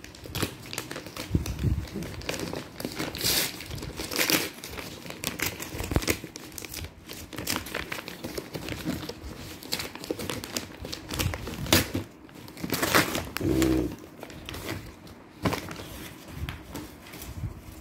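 Paper parcel wrapping crumpled and torn open by hand: irregular crinkling and rustling with sharper tearing strokes as the wrapper is pulled off a cardboard box.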